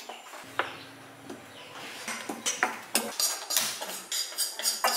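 A metal spoon clinking and scraping against a metal bowl while mixing flour: a few separate clinks at first, then quick repeated strokes from about two seconds in.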